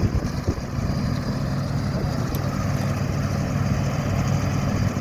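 Diesel engines of asphalt-paving machinery running steadily with a constant low hum, and a couple of brief knocks.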